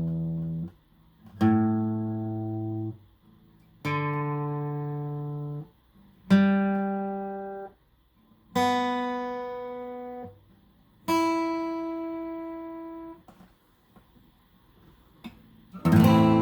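Washburn WD11S acoustic guitar with its open strings plucked one at a time, low E up through A, D, G and B to high E. Each string rings for about two seconds and is then damped. After a short pause a full chord is strummed near the end.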